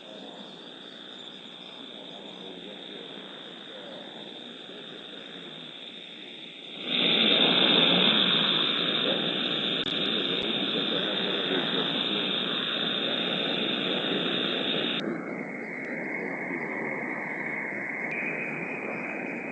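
Hiss of band noise from a Kenwood TS-940S receiver in SSB mode, heard through a Softrock IF Lite II and PowerSDR software's audio filter, with no station on frequency. About seven seconds in, the noise jumps louder as the AGC is switched from slow to fast with a higher threshold. About fifteen seconds in it turns duller as a narrower filter cuts off the top, and it opens up slightly a few seconds later.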